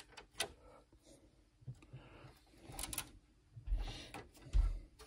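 Faint handling sounds: a few light clicks, then two low bumps near the end, as a hand moves among the expansion cards inside an open computer case.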